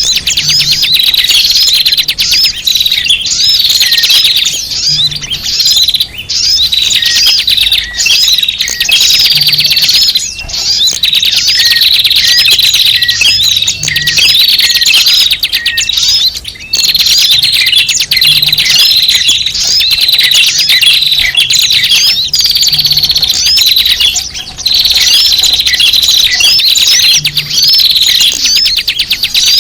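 A loud, dense chorus of many small birds chirping and twittering without pause, quick overlapping high notes. It is a bird-lure call track of noisy small birds, used to draw small birds in.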